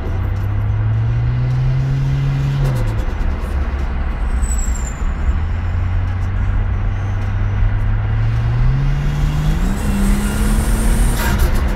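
Ford Falcon XR6 Turbo's turbocharged straight-six running on the move, its revs climbing, dropping about three seconds in, holding, then climbing again. Near the end there is a burst of rapid fluttering chatter, typical of turbo compressor flutter as the throttle shuts.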